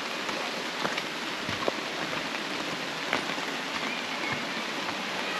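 A steady hiss of water with scattered small ticks through it.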